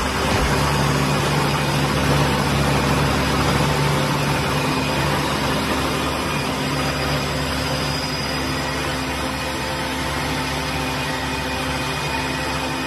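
Plastic-recycling factory machinery running with a steady hum and drone, a little louder in the first couple of seconds.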